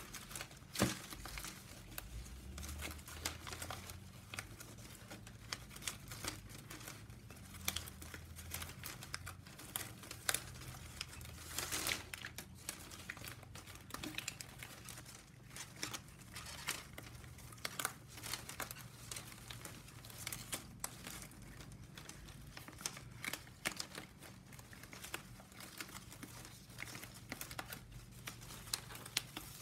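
Thin plastic packaging strapping band crinkling and scraping as it is hand-woven, the strips bent and slid through one another in a steady run of irregular crackles and rustles.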